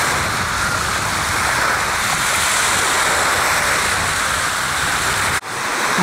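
Sea surf washing onto a sandy beach: a steady, even rush of waves that drops out abruptly about five and a half seconds in.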